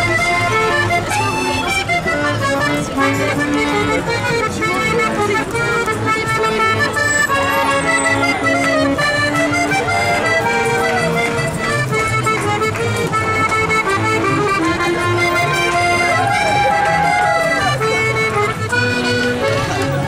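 Piano accordion playing a tune: a melody on the right-hand keyboard over a steady rhythmic bass accompaniment.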